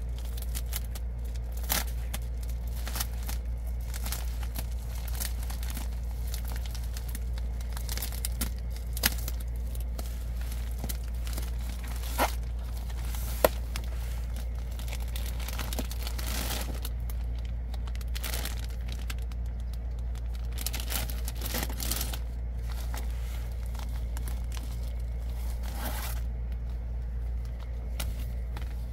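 Plastic bubble mailer being torn open and crinkled by hand, irregular crackling and scraping with a few sharp louder snaps, over a steady low hum.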